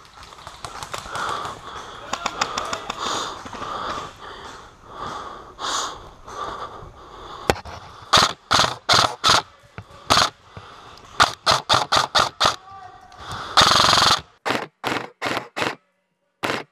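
Airsoft rifle firing close to the microphone: from about eight seconds in, a string of sharp single shots, several a second, in quick groups, then a short continuous burst near the end.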